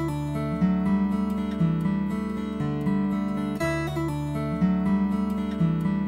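Background music: an acoustic guitar playing a steady plucked and strummed chord pattern, the chords changing about once a second.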